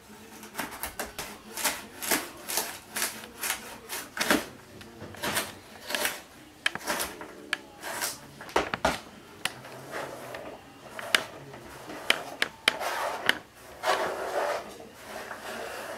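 Chef's knife chopping carrots on a plastic cutting board: a run of sharp, irregular knocks, two or three a second. Near the end the diced carrots are scraped off the board into a bowl with a rubbing, scraping sound.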